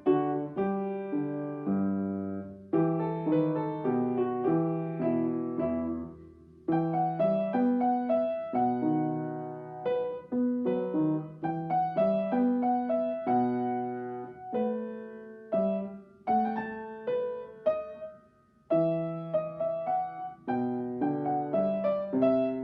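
Solo piano played by a student, a slow melody over a simple bass line, with two brief pauses between phrases.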